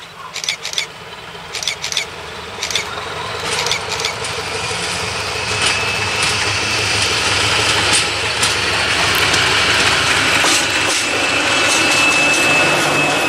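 SM42 diesel shunting locomotive approaching and passing close by, its diesel engine running and growing steadily louder. A few sharp clicks come in the first three seconds, and a steady high-pitched squeal from the wheels on the rails sets in about six seconds in.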